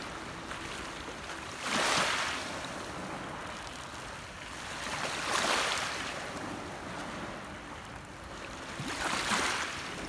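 Gentle lake waves washing up over a pebble shore: three washes of water over the stones, about three and a half seconds apart, the first about two seconds in.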